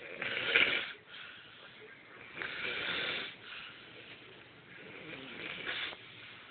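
Snoring from three sleepers, with uneven, rasping snores overlapping at irregular intervals. The loudest snore comes about half a second in and another long one around three seconds.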